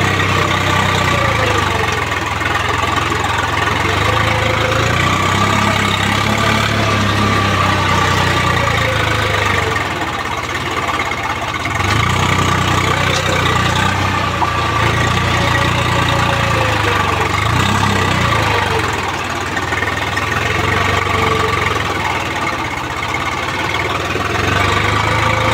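Farm tractor's diesel engine running steadily as the tractor is driven, its pitch sagging and recovering a few times.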